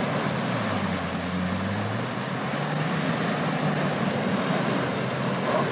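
Land Rover Defender's engine pulling under load as the 4x4 ploughs through a deep water-filled mud rut, with its tyres churning and throwing muddy water. The engine hum rises slightly about a second in, then holds steady under a continuous rush of splashing.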